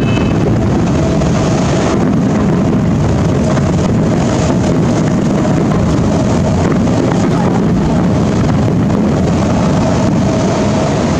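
Fireworks finale barrage: many aerial shells bursting close together, merging into a continuous rumble with crackle.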